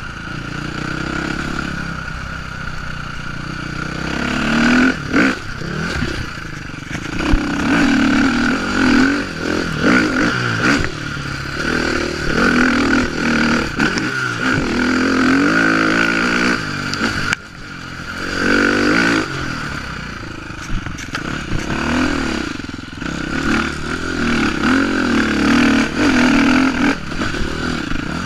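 KTM enduro motorcycle's engine being ridden hard, its pitch rising and falling over and over with the throttle, with scattered knocks and clatter from the bike going over rough ground.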